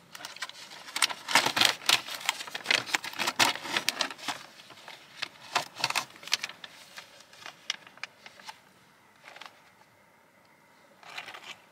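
Plastic Lunchable package being handled and opened: a dense run of crinkling and crackling for about eight seconds, then two brief rustles near the end.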